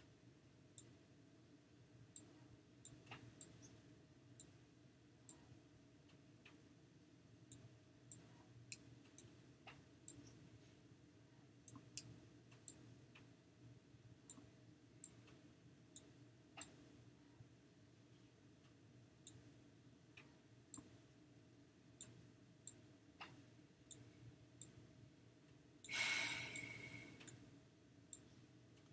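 Computer mouse clicking irregularly, sharp single clicks every half second to second or so, over a faint steady hum. About 26 seconds in, a louder burst of noise lasts about a second.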